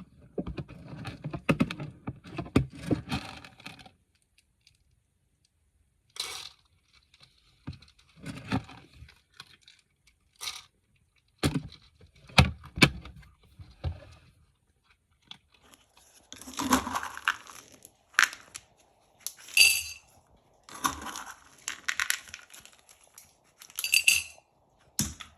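Handling noise: a run of separate knocks and clattering, with metallic jangling and clinking, heaviest in the first few seconds and again in the last third.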